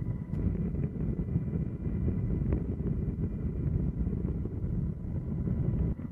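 Wind buffeting the microphone over a low, steady rumble, with a faint steady high whine underneath. The rumble drops off suddenly near the end.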